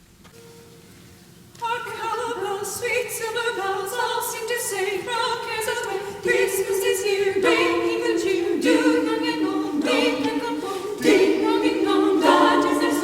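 Church choir singing a Christmas carol in several parts, coming in about a second and a half in after a near-quiet pause.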